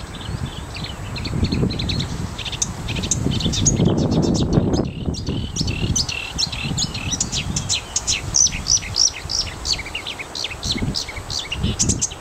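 Marsh warbler singing a fast, continuous stream of short, varied chirps, trills and whistles, with a brief pause about five seconds in. A low rumble swells under the song around four seconds in.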